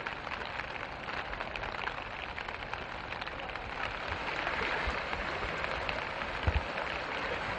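Steady hiss of rain and moving floodwater, a little louder about halfway through, with two brief low thumps near the end.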